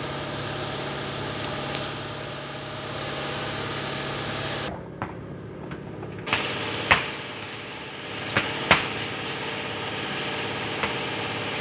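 A car engine idling steadily, with several sharp clicks and knocks in the second half.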